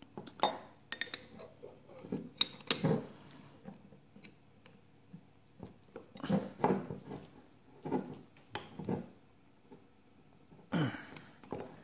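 Metal tools clinking and knocking as a large wrench and an AN fitting are handled and tightened on a tabletop: several light metallic clicks in the first few seconds, then softer handling knocks.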